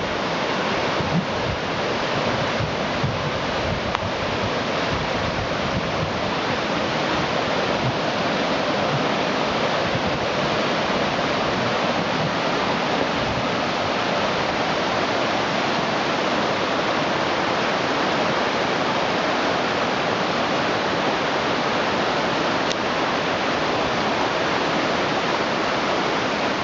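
Waterfall rushing steadily, a constant wash of falling water, with a few faint knocks in the first few seconds.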